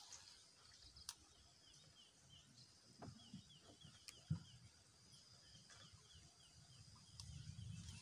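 Near silence with faint outdoor ambience: short high chirps repeating about five a second, and a few soft knocks.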